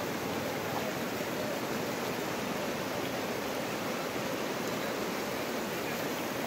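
Shallow floodwater rushing steadily over rocks: the overflow of a reservoir filled to the brim and spilling over its waste weir.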